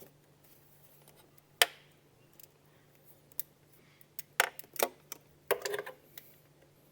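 Irregular sharp metallic clicks and clinks of a swivel-head ratchet and 10 mm socket being worked onto a bolt. There is one loud click about a second and a half in, a few more about two seconds later, and a short rattle after that.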